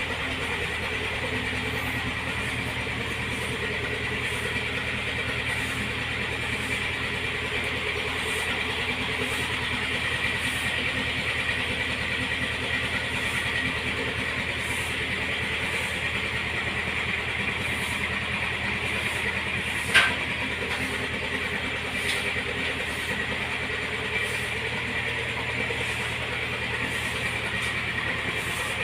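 YTO X704 tractor's diesel engine idling steadily, with one sharp click about twenty seconds in.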